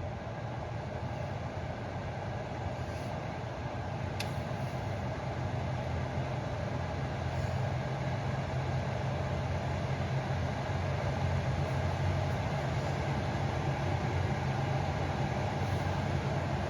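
Panasonic air humidifier's fan running just after being switched on, a steady low hum with an airy whoosh that grows gradually louder over the first several seconds as it spins up. A single small click about four seconds in.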